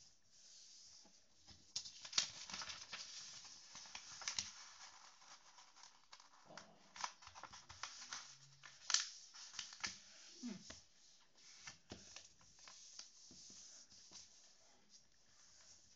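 A sheet of paper being folded and creased by hand: soft rustling with irregular sharp crackles as the folds are pressed down.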